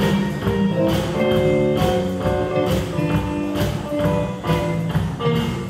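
Live rock-blues band playing an instrumental passage: electric guitar over bass and a drum kit keeping a steady beat.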